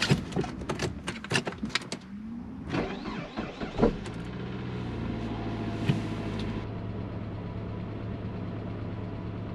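2004 Saab 9-5 engine being started: a few clicks and knocks, a short rising whine from the starter cranking, then the engine catches about four seconds in and settles into a steady idle.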